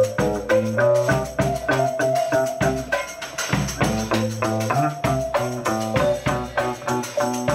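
Live band playing an Egyptian instrumental tune: electric guitar picking a fast, stepping melody over electric bass and a drum kit keeping a steady beat.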